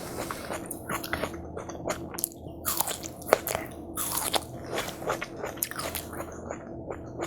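Close-miked eating of juicy watermelon: repeated crisp, wet bites and chewing, crackling irregularly, with a faint steady hum underneath.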